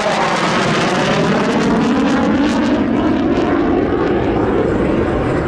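Panavia Tornado's twin RB199 turbofans in a low fly-by: a loud, steady jet roar whose pitch slides as it passes, with the afterburners lit as it climbs away.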